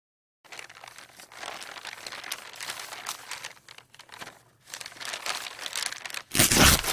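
Paper crumpling and crinkling in two spells with a short lull between, ending in a louder crunch near the end.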